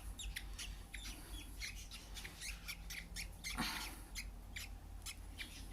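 Budgerigar chicks giving rapid short, squeaky calls, about three or four a second, with one harsher call about three and a half seconds in that falls in pitch. The keeper takes these sounds for the freshly hand-fed chicks burping up air bubbles.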